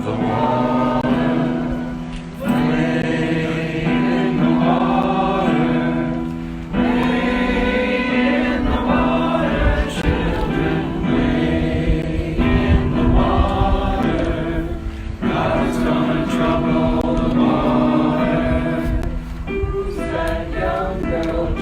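A group of people singing together, in sung phrases with short breaks between them, over sustained low notes.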